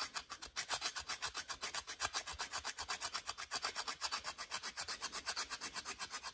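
Spine of a steel survival knife scraping a stick of resinous fatwood in quick, even back-and-forth strokes, about ten a second, raking off fine shavings.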